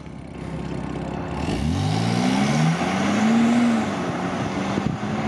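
BMW 328i's N52 inline-six accelerating hard from a standstill through an exhaust with the secondary catalytic converters deleted and the valved muffler closed. The engine note starts about a second and a half in and climbs for about two seconds, eases slightly, then holds steady as the car pulls away.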